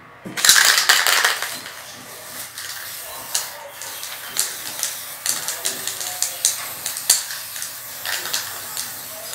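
Aerosol spray-paint can hissing in a loud burst about half a second in, followed by a run of short, irregular clicks and spray puffs.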